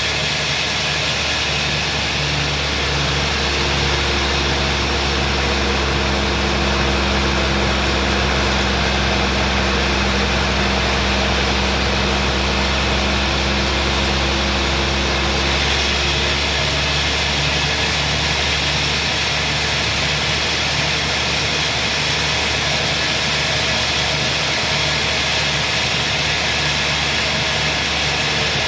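Sawmill machinery running steadily: a continuous engine hum with a low, evenly pulsing throb and a dense hiss over it. The sound shifts slightly about halfway through.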